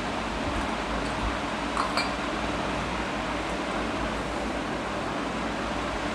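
Steady whir and hiss of a running fan, with two small ringing clinks of metal or glass close together about two seconds in.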